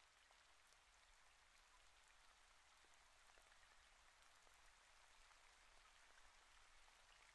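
Near silence with a faint, steady rain ambience and scattered tiny droplet ticks.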